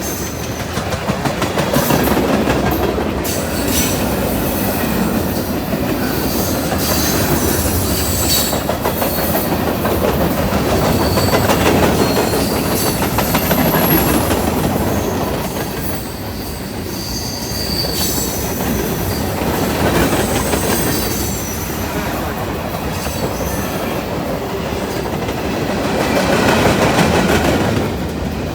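A fast freight train's cars rolling past close by, wheels clattering over the rail joints in a steady rush of noise that swells and eases, with brief high-pitched wheel squeals.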